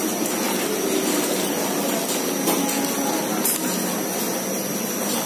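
Steady rushing ventilation noise with a thin, steady high whine, like a fan or air-conditioning unit running; a couple of faint clicks midway.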